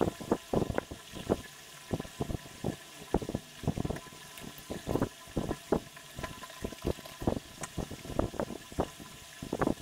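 Pencil strokes rubbing on paper while shading a drawing: an irregular run of short strokes, a few a second.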